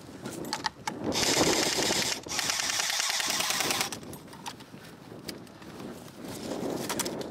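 Airsoft gun firing on full auto in two rapid bursts, a short one and then a longer one of about a second and a half, with a short break between them.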